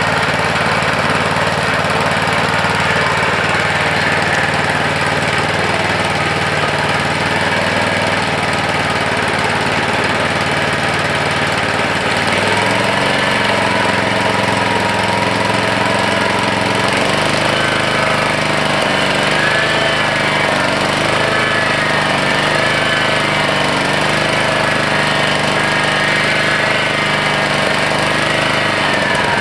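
Honda HR214 lawnmower's single-cylinder four-stroke engine running steadily at speed, its pitch shifting slightly about halfway through and wavering after that.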